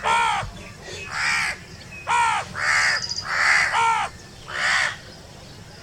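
Crow cawing: about seven harsh caws in quick succession, some in close pairs, then it stops.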